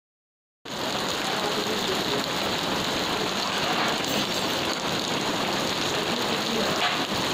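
Hailstorm: hailstones and rain falling in a dense, steady patter on a hail-covered road. The sound cuts in suddenly about half a second in.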